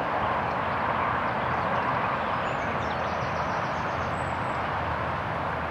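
Steady outdoor background noise, an even rush with no clear single source, with a few faint high chirps in the middle.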